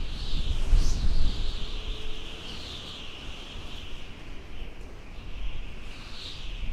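Nature soundscape of a dense bird chorus, steady chirping and calling throughout with a few sharper rising chirps. A low rumble sits under it for the first second or two.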